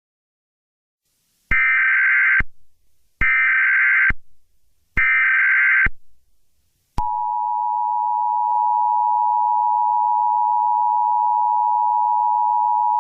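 Emergency Alert System alert: three short buzzy data bursts of the SAME header code, a little under a second apart, then from about seven seconds in the steady two-tone EAS attention signal.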